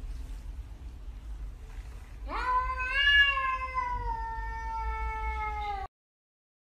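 A cat gives one long, drawn-out meow about two seconds in. It rises sharply in pitch and then slowly falls for about three and a half seconds, then cuts off suddenly.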